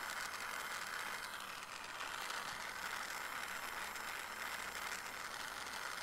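Jeweller's gas torch flame hissing steadily as it heats Argentium sterling silver clasp parts toward fusing temperature.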